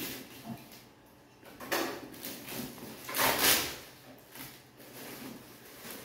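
Plastic-bagged jars rustling and scraping as they are shifted about in a cardboard box, with two louder rustles, the loudest about three seconds in.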